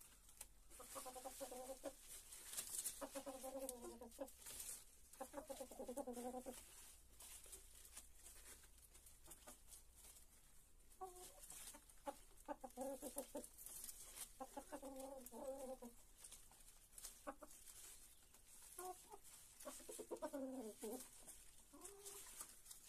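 A flock of chickens clucking while they feed: repeated bouts of low, drawn-out calls of about a second each, with a few seconds' pause in the middle.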